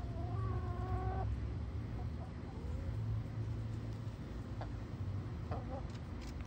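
Domestic hens calling: one drawn-out, steady call lasting about a second at the start, then a few soft, short clucks over a steady low rumble.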